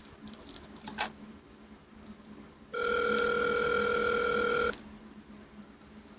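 Telephone ring tone on a call: one steady electronic ring about two seconds long, beginning about three seconds in, with faint crackle and a sharp click before it.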